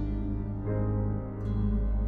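Instrumental background music with slow, sustained chords; the chord changes about two-thirds of a second in.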